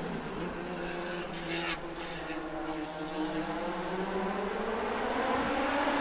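Hillclimb racing car's engine at high revs out of sight, its pitch rising and falling through gear changes, growing louder toward the end as it approaches.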